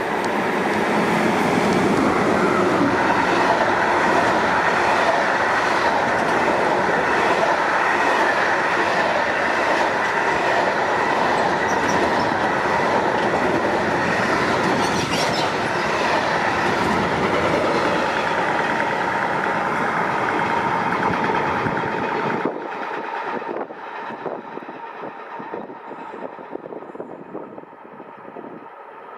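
Train passing on the track, a loud steady rumble with wheel and rail noise that drops off sharply about 22 seconds in, leaving quieter, uneven rolling sounds with a few clicks.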